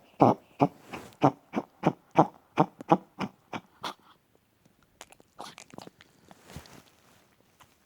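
Chihuahua coughing in a rapid run of short, even hacks, about three a second, that grow weaker and stop about four seconds in. It is the cough of a dog with congestive heart failure from mitral and tricuspid valve disease.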